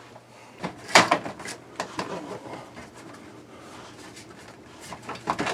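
Plastic garnish trim of a Fantastic Fan roof vent being pressed and worked into its tight ceiling opening: a sharp knock about a second in, then scattered light clicks and taps, with a small cluster near the end.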